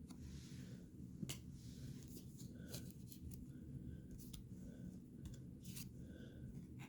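Trading cards being handled and sorted: faint snaps and ticks with soft slides as cards are flipped through and set down, about a dozen irregular clicks.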